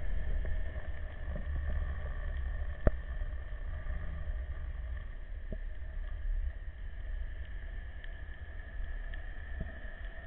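Underwater ambience picked up through a camera housing: a steady low rumble with a faint high whine, broken by a few sharp clicks, the clearest about three seconds in.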